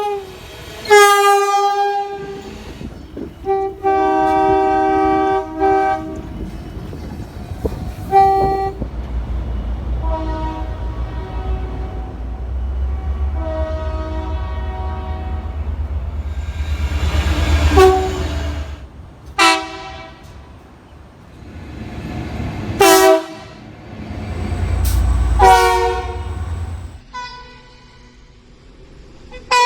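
Train horns sounding about eight times, some as short toots and some as long blasts, each a chord of several notes, with the low rumble of a train running underneath between blasts. The sound cuts abruptly from one train to the next.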